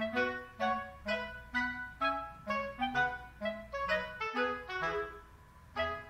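Background music: a light melody of short notes, about two a second, thinning out near the end.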